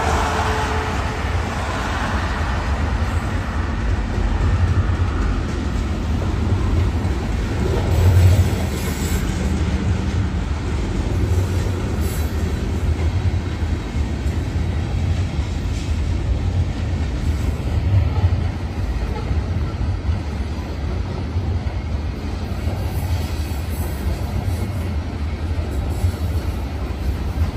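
Loaded freight train of covered hopper cars rolling across a steel girder bridge: a steady low rumble of wheels on rail, with a few louder clanks, the strongest about eight seconds in.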